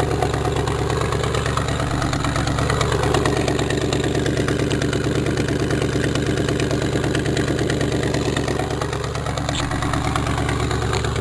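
A 305 small-block Chevrolet V8 idling, with a loud tr-tr-tr exhaust leak from a rusted-out crossover-pipe flange: one flange bolt has let go and the donut gasket leaks. The engine is heard with the hood open.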